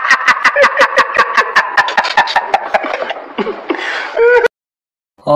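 A person laughing: a fast run of ha-ha bursts, about six a second, that trails off over some three and a half seconds, followed by a brief rising vocal sound just after four seconds.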